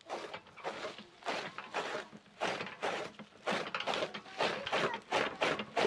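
Dry sugarcane leaves and green fodder rustling and crunching in repeated strokes, about two a second, as the fodder is handled and chopped into chaff.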